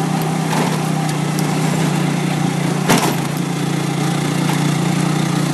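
Small motorcycle engine of a tricycle running steadily, heard from inside the sidecar, with one sharp knock about three seconds in.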